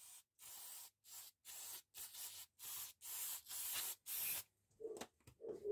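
The area around the oil filter housing on the engine is being cleaned: about ten short hissing strokes in quick succession, each under half a second with brief gaps, stopping shortly before the end.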